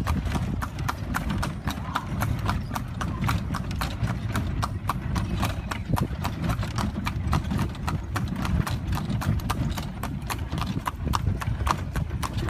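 Horse's hooves clip-clopping steadily on a paved road as it pulls a cart, about four hoof beats a second, over a steady low rumble.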